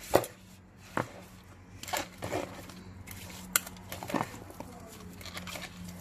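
A silicone spatula stirring and tossing smashed cucumber pieces in a plastic colander, giving irregular soft knocks and wet clacks, about six in all, over a faint steady hum.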